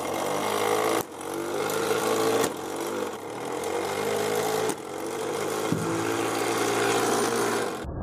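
Flywheel shooter's motor-driven flywheel spinning at a fixed speed: a steady mechanical hum with a pitched whine. The level drops suddenly about a second in and again near five seconds, then recovers.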